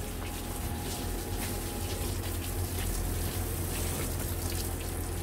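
Water spraying steadily from a hose onto a golf cart's clear plastic windscreen, roof and body panels, a continuous hiss with small splashes and patter, over a steady low hum.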